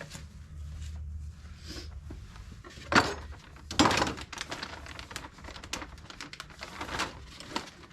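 A few sharp knocks and clatters, the loudest about three seconds in and again a second later, then lighter clicks, over a low steady hum.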